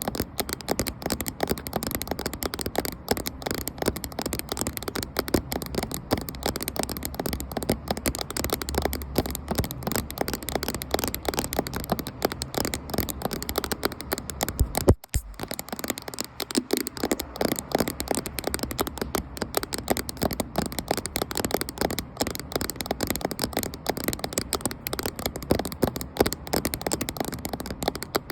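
Fast, continuous tapping of fingers and fingernails on a camera, dense irregular taps. The sound cuts out for an instant about halfway through, then the tapping carries on.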